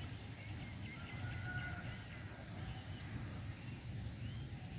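Open-air ambience: an uneven low rumble of wind on the microphone, a steady high-pitched whine, and a few faint chirps.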